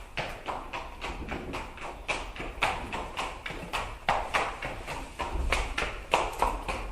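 Horse galloping: a quick, uneven beat of hoof strikes, several a second.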